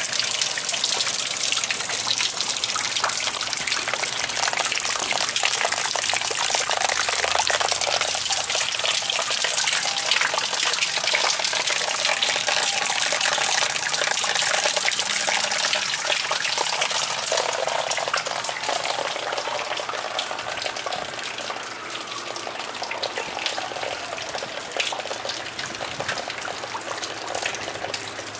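Heavy rain falling and splashing onto wet black plastic sheeting and ground, a dense steady hiss of drops. It grows a little softer in the last third.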